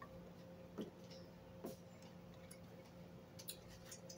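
Quiet eating with a fork: a few soft, irregular clicks of the fork and of chewing, over a faint steady hum.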